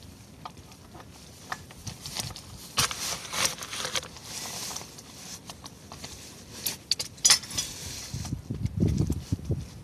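A socket wrench on an extension clicking and rattling as the bolts of a Mercedes 722.6 automatic transmission's valve body are undone, in short metallic bursts about three seconds in and again about seven seconds in. A dull low rumble follows near the end.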